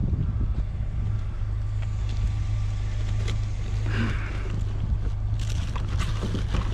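Steady low rumble of an idling vehicle engine, with a few light knocks and rattles about four seconds in and again near the end.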